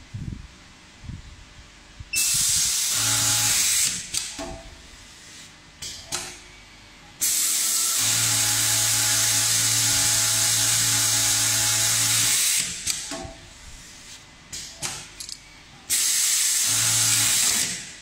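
Automatic collar top-stitching machine running in bursts: a short run about two seconds in, a long run of about five seconds in the middle, and another short run near the end. Each run is a loud, steady whirring hiss with a low hum under it, and there are quieter clicks between the runs.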